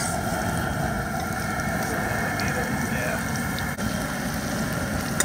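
Breaded alligator nuggets sizzling in hot grease in a cast-iron skillet, with the steady low rush of a propane burner underneath. A few faint clinks come from a metal spoon as more pieces go in.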